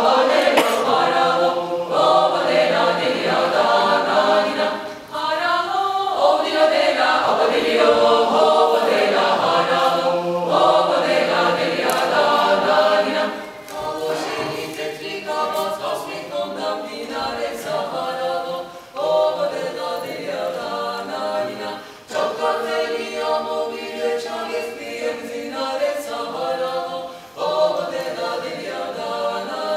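Mixed choir of men's and women's voices singing a cappella in several-part polyphony. The phrases are separated by brief breaks, and the singing grows softer after about thirteen seconds.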